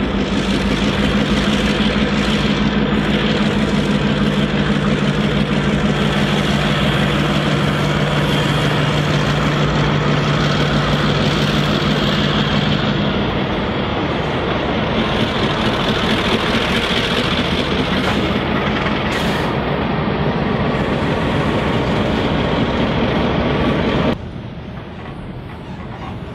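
Two diesel-electric locomotives hauling an iron ore train pass close by, their engines running with a steady low tone. About halfway through the engine tone fades and the empty ore hopper wagons roll past. Near the end the sound drops abruptly to a quieter, more distant train.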